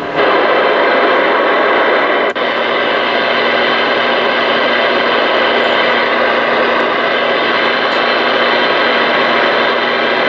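Stryker SR-497HPC ten-meter radio receiving with the squelch open: steady, loud static hiss from its speaker, cutting in suddenly and briefly breaking off once about two seconds in.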